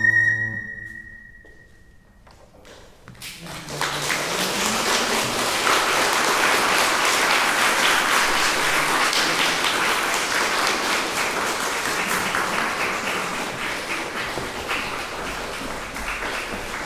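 An ocarina and classical guitar end a piece on a held note that fades out. After about a second of quiet, an audience in a hall applauds steadily, thinning slightly near the end.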